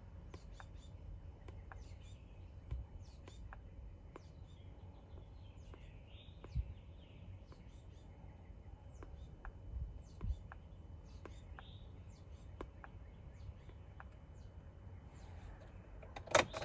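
Faint outdoor ambience: small birds chirping on and off over a low rumble, with a few soft knocks and a sharp click near the end.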